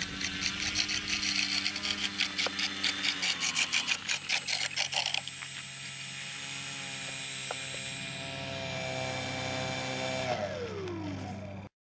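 Electric outrunner motor of a model biplane running at low power with a fast, even rattling over it. After a cut it hums steadily, then winds down with its pitch falling before the sound cuts off.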